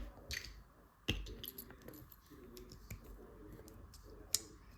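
Small plastic LEGO pieces clicking and clattering as they are picked out and pressed together by hand: a few scattered sharp clicks, the sharpest a little after four seconds in.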